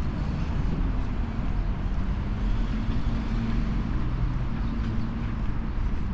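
Steady rumble of road traffic, with a faint engine note coming in about two seconds in.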